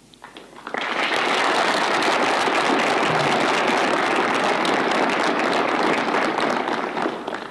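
Audience applauding: dense clapping that starts about a second in, holds steady and fades near the end.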